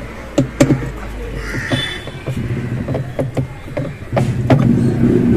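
Sharp clicks and knocks of tools and parts being handled on a washing machine as the pulsator is fastened. About four seconds in, a louder motor-like sound starts and rises in pitch.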